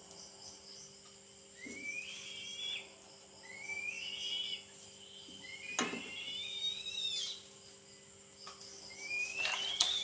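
Young eagle begging with rising whistled calls, four of them, each climbing in pitch over about a second. A few sharp knocks come between the calls, the sharpest near the end. Faint insect chirping runs underneath.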